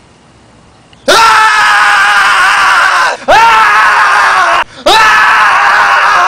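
A young man screaming in panic: three long, very loud screams, the first about a second in, each jumping up in pitch at the start and then held.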